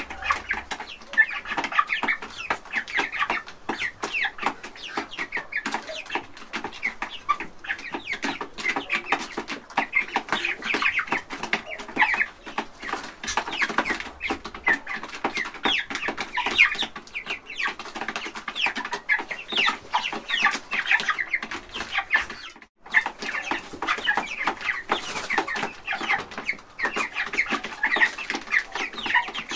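A flock of young chickens and hens clucking and calling, with many short calls overlapping continuously. The sound breaks off briefly about three-quarters of the way through.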